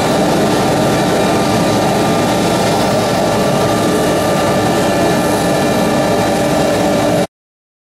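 Blue Elephant 1530 CNC router's machinery running steadily while the gantry stands still, a loud even hum with several steady tones over a whooshing noise. It cuts off suddenly near the end.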